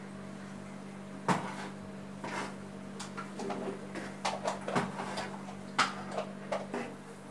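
A long-handled spoon scraping and knocking against the side of a large metal pot while stirring nearly cooked biryani rice, in irregular scrapes and clinks, the sharpest knock about a second in. A steady low hum runs underneath.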